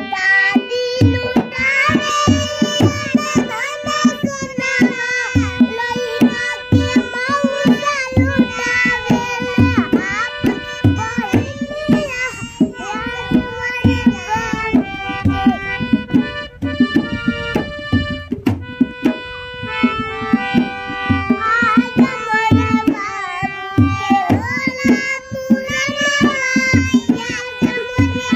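Harmonium playing held reed chords under children singing a Hindi song, with a drum beating a steady rhythm. The singing stops for a few seconds in the middle while the harmonium and drum carry on.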